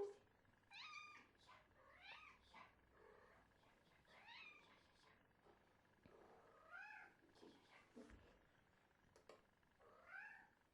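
A domestic cat squeaking: a series of short, quiet, high-pitched mews, each rising and then falling in pitch, spaced a second or a few seconds apart.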